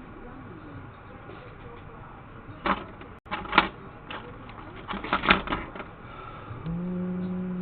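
Sharp clicks and taps of small tools and parts being handled on a repair bench, in two clusters a couple of seconds apart, then a steady low hum for about a second near the end.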